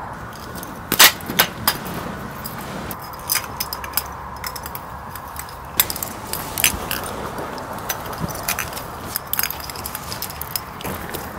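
String lights being unhooked and taken down by hand: small bulbs and clips clink and rattle at irregular intervals, over a steady background hiss.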